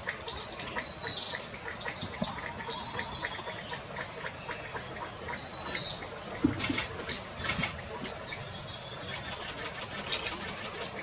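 Birds calling: a high phrase repeats loudly three times in the first six seconds over a steady scatter of quick chirps.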